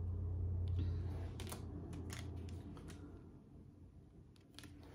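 Small oracle cards being handled, with a few short sharp clicks and taps of long fingernails against the card stock as one card is swapped for the next. A low steady hum sits underneath and fades out around the middle.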